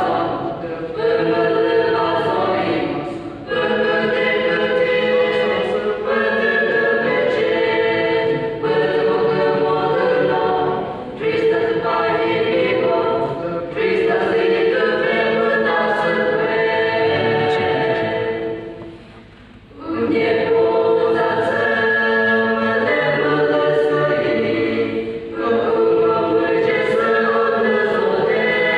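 A small mixed choir singing a hymn in several voice parts, phrase after phrase, with a brief pause about two-thirds of the way through.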